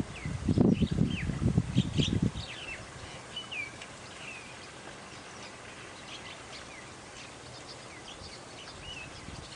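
Wind gusting on the microphone for the first two seconds or so, then small birds chirping: scattered short chirps, some sliding up and some down.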